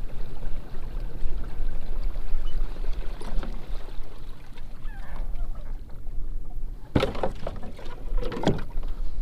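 Kayak on the water, with steady low water and rumbling noise against the hull and two sharp splashy strokes near the end, like a paddle dipping in.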